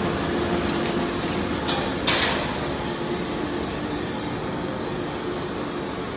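Industrial waste shredder and its discharge conveyor running with a steady hum as shredded cardboard and plastic waste tumbles off the belt. A single sharp crack about two seconds in.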